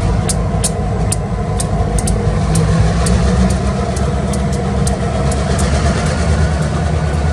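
Union Pacific diesel locomotives rolling slowly past, their engines running with a steady low rumble. Sharp clicks come about twice a second, from the wheels crossing the rail joints.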